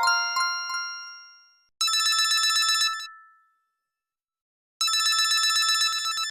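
LG KF300 phone ringtone synthesized on a Yamaha MA-7 sound chip: a telephone-style ring, a rapid bright trill lasting about a second, a pause of nearly two seconds, then the trill again near the end. At the start the last notes of a chime-like melody fade away.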